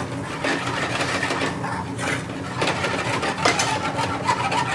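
Metal spoons scraping and clinking against steel frying pans as curry sauce is stirred and cooked, with several sharp clinks, over a steady low hum of kitchen equipment.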